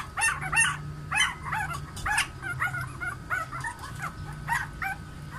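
Week-old Doberman-cross puppies squealing and whining in a quick run of short, high, rising squeaks, about three a second.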